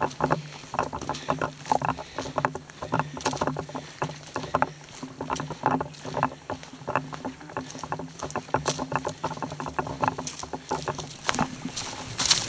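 Footsteps of backpackers walking along a dry, leaf-strewn forest path: a steady run of short, irregular steps and rustles.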